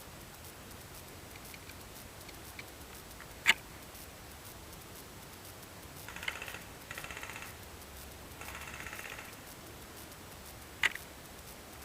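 Airsoft guns firing: two short bursts of rapid ticking automatic fire in the middle, with a single sharp crack before and after.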